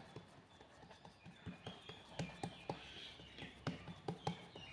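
Faint, irregular taps and knocks of ragi dough being pressed and spread out by hand in a bowl.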